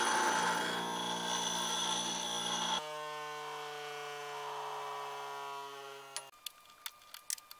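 Ryobi 8-inch bench grinder grinding steel, the wheel hissing against the metal over the motor's hum. The grinding stops abruptly about three seconds in, leaving the motor's hum slowly falling in pitch as the wheel winds down. After that come a few faint ticks.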